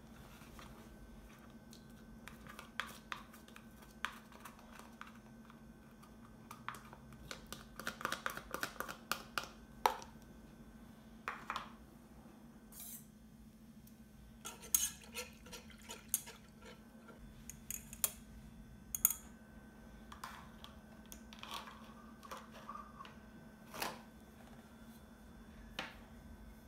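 Scattered clinks and taps of kitchen utensils and cookware, a saucepan and a stainless steel bowl, with clusters of quick taps about a third and halfway through, over a steady low hum.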